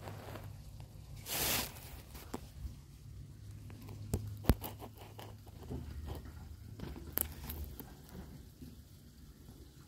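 Scattered small clicks, scuffs and rustles close to the microphone, with a short hissing burst about a second and a half in and a sharp click near the middle, over a low steady hum.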